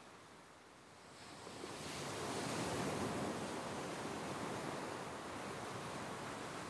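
Ocean surf washing onto a beach: a short lull, then a wave rushes in about a second and a half in, swells to its loudest around three seconds, and keeps washing steadily.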